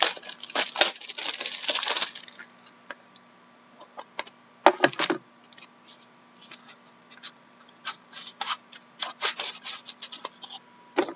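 Plastic shrink-wrap crackling as it is pulled off a card box, loudest in the first couple of seconds. Then scattered clicks and scrapes of cardboard box lids being lifted and handled, with a sharp rustle about five seconds in.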